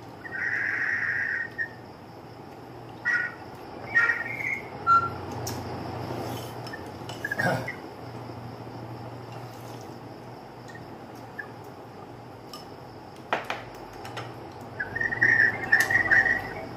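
A man sipping and slurping hot soup in short noisy bursts, three times, with a few sharp clicks of chopsticks and dishes in between, over a steady low hum.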